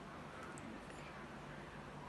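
Quiet room tone with a faint steady hum and a couple of soft ticks, as fingers pleat and pinch a filled momo wrapper closed.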